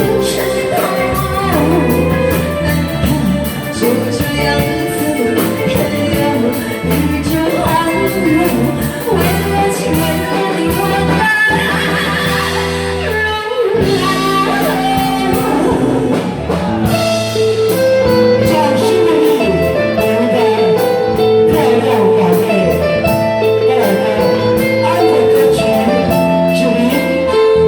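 Music: a song with singing over a band backing of bass and guitar.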